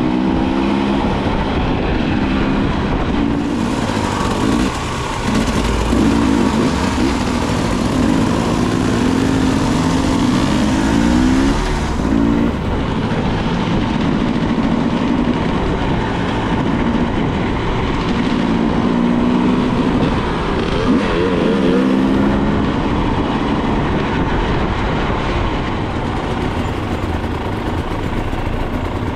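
Enduro motorcycle engine heard from the rider's seat, its revs climbing and dropping back again and again as it pulls through the gears, over a steady rush of noise.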